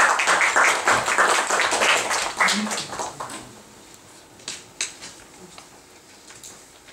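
Audience applauding, loud for about the first three seconds, then dying away into a few scattered claps.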